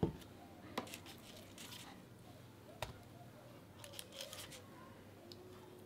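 Quiet tabletop handling: a plastic dessert cup set down on a plate with a thump, then a few small knocks and the crinkle of a thin plastic clamshell punnet as strawberries are picked out of it.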